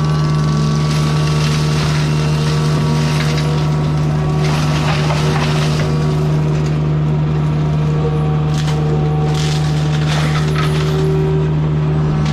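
Forestry mulcher's diesel engine running steadily under load while the mulching head grinds wood. Bursts of chipping and splintering noise come about halfway through and several more times near the end.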